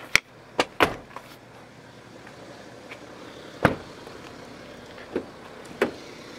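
Sharp knocks and clicks from a BMW X5's doors being shut and opened. Three come close together at the start, then single ones about three and a half, five and six seconds in.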